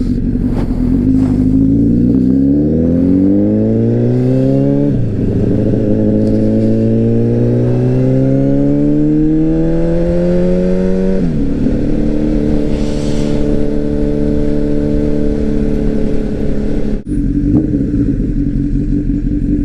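Honda CBR1000RR's inline-four engine accelerating through the gears. The revs climb, drop at an upshift about five seconds in, climb again and drop at a second upshift about eleven seconds in, then hold steady at cruising speed, with a momentary dropout in the sound near the end.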